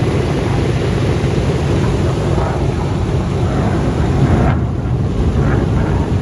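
The Pratt & Whitney piston engines of a multi-engine warbird running steadily with a deep, loud rumble, wind buffeting the microphone.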